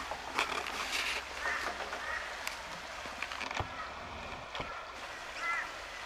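Black swan giving short high-pitched bugling honks, a couple of times in the first half and again near the end, among sharp knocks and rustles, the loudest of them near the start.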